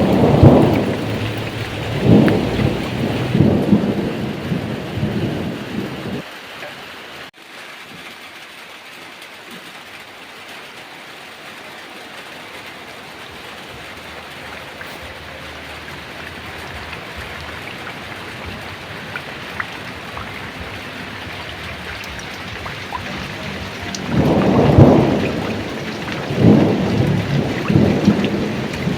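Heavy rain falling steadily with thunder rumbling over it. Loud rolling rumbles swell several times in the first six seconds, then cut off abruptly, leaving the rain alone. Another rumble rises about twenty-four seconds in and rolls on to the end.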